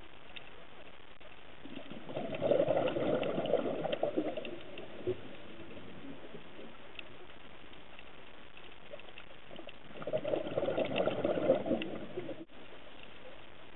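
A scuba diver's exhaled bubbles gurgling out of the regulator, two breaths about eight seconds apart, each lasting two to three seconds, heard through the camera housing over a steady faint underwater hiss.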